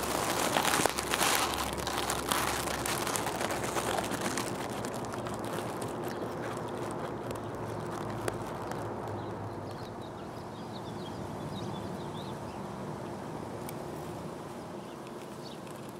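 Close rustling and crackling against the camera's built-in mic for the first few seconds, then a steady outdoor background with a few faint bird chirps about ten seconds in.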